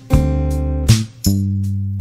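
Background music: chords struck three times, each ringing on until the next.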